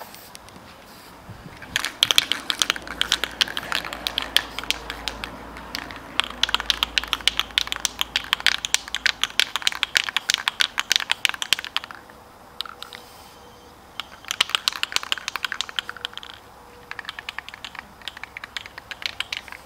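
Aerosol spray paint can rattling: the mixing ball clicks rapidly in three spells of shaking, the first about ten seconds long.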